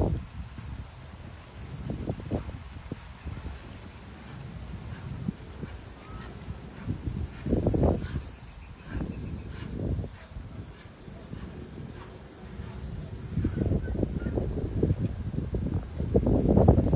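A steady, high-pitched chorus of insects, crickets or cicadas, chirring without a break. Wind buffets the microphone in low rumbling gusts, one just before halfway and stronger ones near the end.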